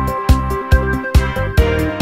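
Background music with a steady, fast beat and heavy bass drum hits under held melodic notes.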